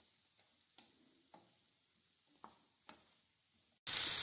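Near silence broken by a few faint clicks; about four seconds in, stir-fried vegetables sizzling in a pan start up again abruptly.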